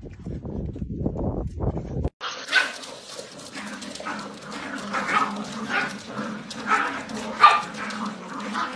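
Corgi puppies and an adult corgi yipping and barking in quick, high-pitched cries, many overlapping. A low rumble comes before them and cuts off about two seconds in.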